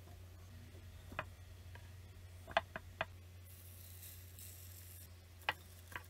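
Vegetable pieces packed by hand into a glass jar, knocking against the glass in a few light taps, three close together about halfway through and another near the end, with a soft rustle between.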